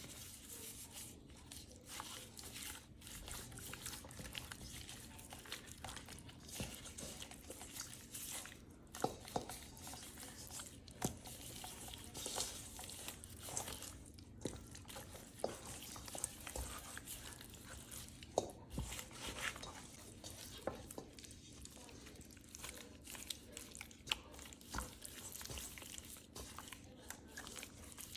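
Kitchen handling noises: rustling and crinkling with many small irregular clicks and knocks over a steady high hiss.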